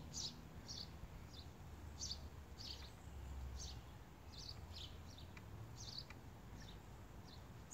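A bird chirping repeatedly and faintly, short high chirps one or two a second, over a faint low rumble.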